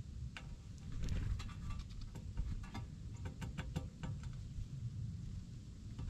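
Birds at a ground feeder: scattered light ticks and clicks, thickest from about one to four seconds in, over a low steady rumble on the microphone.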